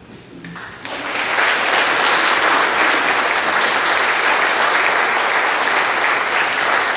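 Audience applauding, swelling in the first second and then holding steady.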